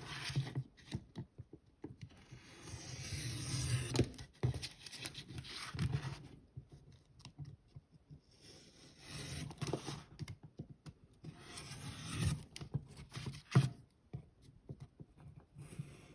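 Wallpaper being cut at the corners with a sharp blade and handled: the paper rustles and scrapes in several stretches of a second or two, with a couple of sharp taps.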